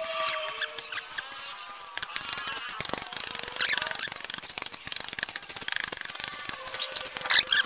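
Frozen sugarcane juice ice being broken up: dense crackling and clicking with short high squeaks.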